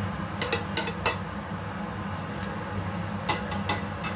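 Metal ladle clinking and scraping against a plate and the rim of a soup pot as seasonings are pushed into the soup and stirred: a quick run of sharp clinks in the first second and three more near the end, over a steady low hum.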